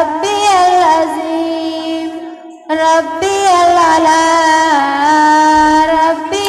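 Girls' voices singing an Islamic devotional nazam in unaccompanied chant style, with long held notes that slide between pitches. The singing fades out about two seconds in and resumes a moment later.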